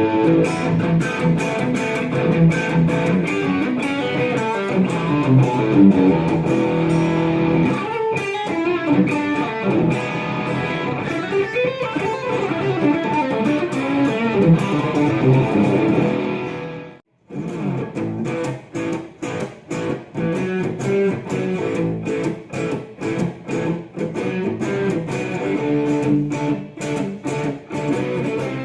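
Electric guitar music. It drops to silence for a moment about two-thirds of the way through, then an Epiphone Les Paul Studio played through a Marshall MG50FX amp comes back in riffs with short breaks between phrases.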